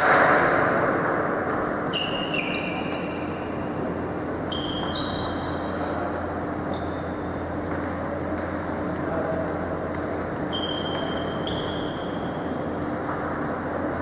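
Table tennis ball bouncing now and then, each bounce a short ringing ping, several coming in quick pairs, over a steady low hum.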